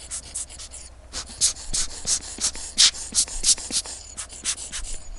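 Quick, irregular small clicks and scrapes from handling a wristwatch and its metal parts and tools on the bench, several a second.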